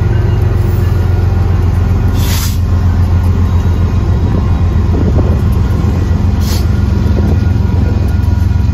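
CSX diesel locomotives leading a freight train rumbling steadily past a grade crossing, the locomotives giving way to covered hopper cars. Two brief hisses come about two seconds in and again near the end.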